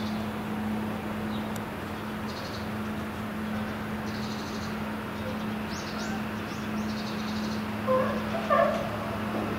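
Steady low drone of a boat engine, with faint high chirps on and off. Near the end come two short animal calls, the loudest sounds.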